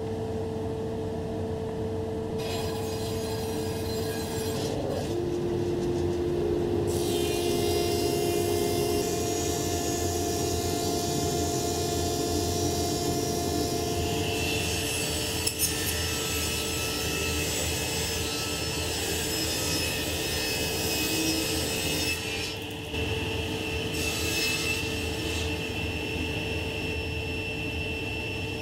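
Woodworking machines cutting hardwood: a bandsaw ripping a board into strips, then a thickness planer running as strips are fed through it, with the sound changing at each new cut.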